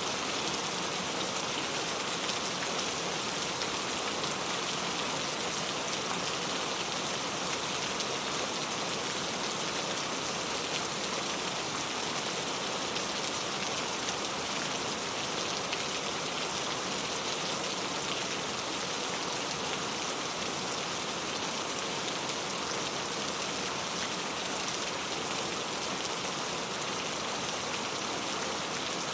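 Steady rain falling, an even hiss of many drops with no breaks.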